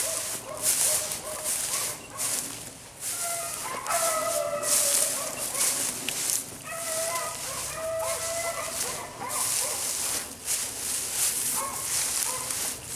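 Beagles baying on a rabbit's trail, drawn-out bawling notes that come twice in long runs in the middle and again faintly near the end. Brush crackles and rustles close by throughout.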